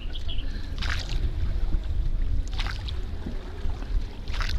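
Boat paddle splashing in the water three times, about a second and a half apart, over a steady low rumble of wind on the microphone.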